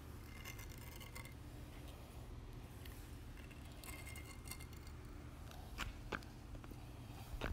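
Faint scraping and clicking of a small hand trowel worked through wet metallic epoxy on a floor, with a few sharper clicks in the second half, over a steady low hum.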